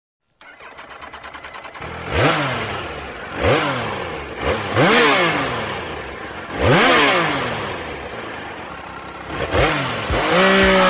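Motorcycle engine idling briefly, then revved in about six sharp throttle blips, the pitch rising quickly and falling back with each.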